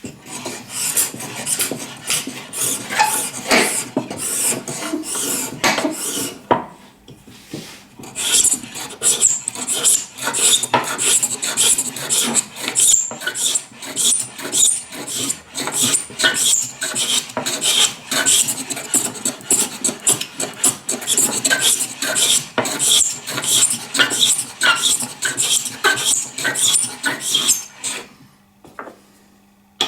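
Blade of a Stanley scraper plane being sharpened with quick repeated strokes, several a second. There is a short pause about 7 s in, and the strokes stop near the end.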